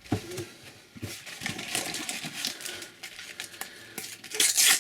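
Sticker packets and stickers being handled: paper and foil wrappers rustling and crinkling with small clicks, and a louder burst of crinkling about four and a half seconds in.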